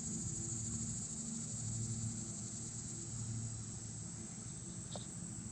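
Steady high-pitched chorus of insects buzzing from the riverbanks, with a faint low rumble underneath and a single small click near the end.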